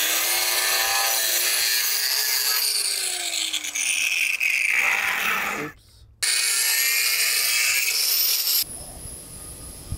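Electric angle grinder with a disc working into a wooden plank, its motor whine wavering under load. About five and a half seconds in the pitch falls away and the sound breaks off briefly. It then runs again and stops suddenly near the end.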